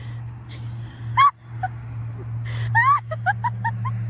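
High-pitched squealing giggles from a person: a sharp squeal about a second in, another around three seconds, then a quick run of short giggles near the end, over a steady low hum.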